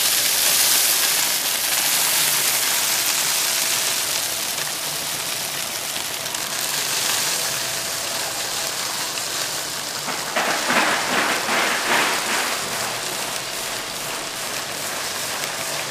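Incline cleated conveyor running and carrying loose product, a steady hiss of small pieces pattering and sliding. About ten seconds in, a denser run of fine clicks lasts a couple of seconds.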